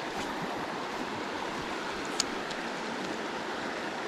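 Creek water running steadily over the streambed, with one short sharp click about two seconds in.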